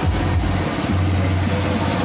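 Coconut-husk grinding machine running steadily, a dense mechanical noise over a low hum.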